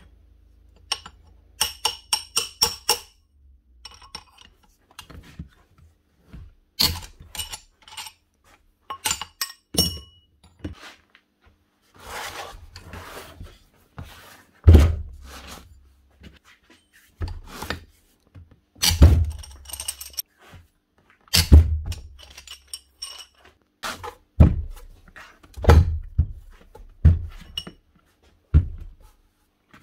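Heavy steel parts of a Bosch GSH 27 demolition breaker being worked apart on a workbench. A quick run of ringing metallic clinks comes first, then a stretch of scraping, then a series of heavy metal thunks a few seconds apart as the housing and internal parts are knocked and shifted.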